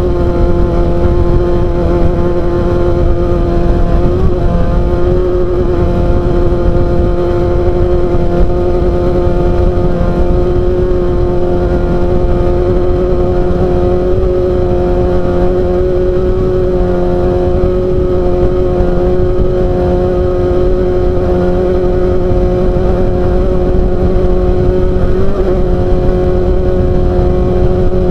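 Off-road race car's engine running hard at a nearly constant pitch, with a rough low rumble underneath throughout.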